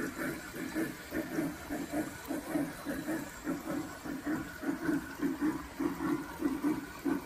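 G-scale model steam locomotive chuffing in an even rhythm of about three chuffs a second, over a steady hiss.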